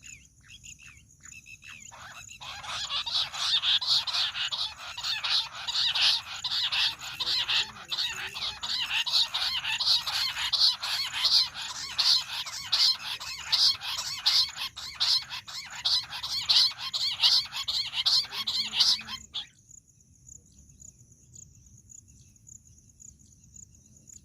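Bush quail calling: a loud, fast run of repeated notes that starts about two seconds in, goes on for about seventeen seconds and cuts off suddenly.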